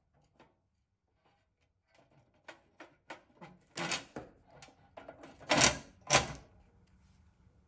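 Metal clicks and scrapes of needle-nose pliers working the axle end of a pressed-steel toy truck's rear wheel, as the axle cap is pried off and the rubber wheel is worked off the steel axle. A few light clicks come first, then louder scrapes, the loudest two about two-thirds of the way in.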